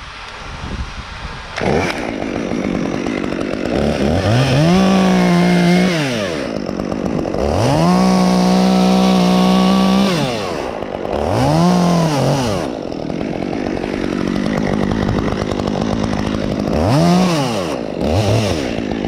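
Stihl top-handle chainsaw cutting through a tree branch. It comes in about two seconds in and is revved up and let off several times, its pitch rising and falling with each burst, and it is held longest at full speed about halfway through.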